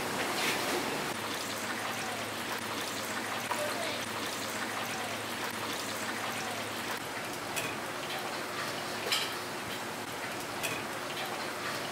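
Filet steak deep-frying in the hot oil of a commercial deep fryer, a steady crackling sizzle of bubbling oil. A few light clicks of steel tongs against the wire fryer basket come through it.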